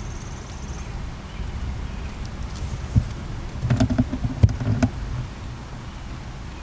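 Low rumble of a vehicle rolling slowly along a gravel road, heard from inside the cabin, with a few knocks and crunches from the gravel around the middle. A faint, steady high whine sounds in the first second.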